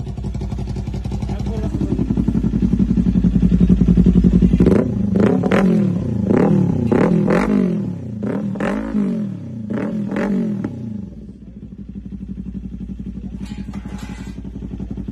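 Kawasaki Ninja 200 motorcycle engine through an aftermarket exhaust: it idles, the engine speed climbs, then the throttle is blipped about eight times in quick succession, each rev jumping up and falling back, before it settles to idle again.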